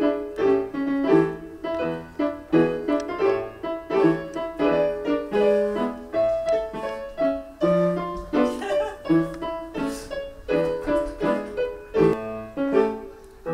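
Electronic keyboard playing a piano-voiced tune in a regular rhythm, melody notes over low bass notes.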